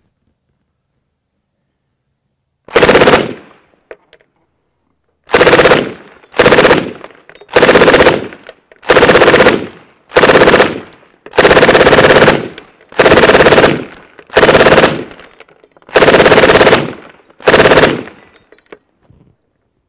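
M240B belt-fed machine gun, fitted with a Rugged Suppressors Razor 7.62 suppressor, firing eleven short bursts of automatic fire. One burst comes about three seconds in; the rest follow in quick succession about a second apart.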